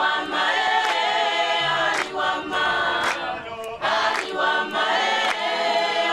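Choir singing a gospel song a cappella in harmony, repeating one short sung phrase about every two seconds.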